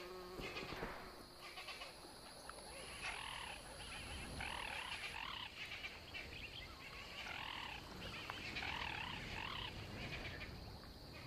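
African fish eagle calling: two bursts of repeated yelping notes, about three seconds in and again about seven seconds in, over a steady high-pitched drone.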